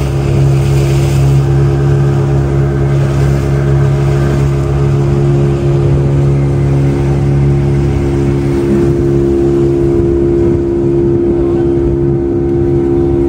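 A motorboat's outboard motor running steadily under way, a constant engine hum made of several steady tones.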